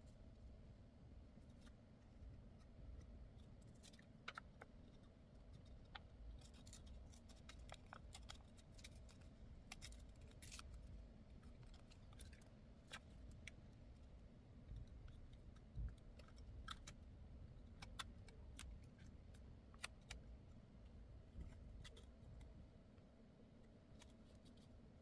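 Faint, scattered small clicks and ticks, irregular and denser in the first half, over a low steady hum.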